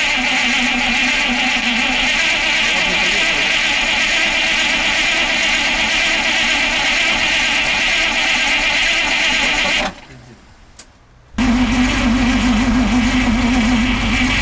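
A vehicle engine running steadily, with a sudden break about ten seconds in before the running resumes.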